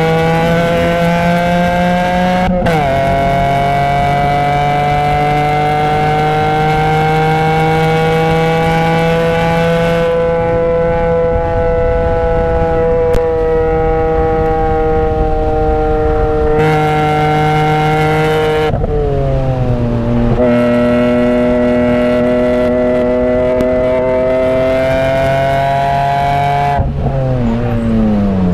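BMW E46 M3's 3.2-litre S54 inline-six running hard near its redline, heard from inside the cabin. A quick upshift drops the pitch about two and a half seconds in, then the revs climb and hold high. The pitch steps down twice about two-thirds of the way through and falls away near the end as the car slows.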